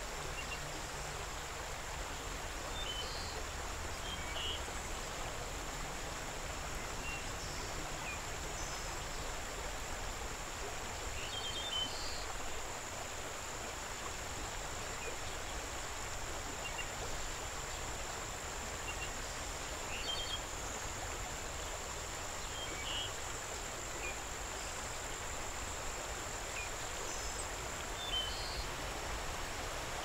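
Waterfall water rushing steadily, with short bird chirps scattered every few seconds and a thin, steady high-pitched whine over it.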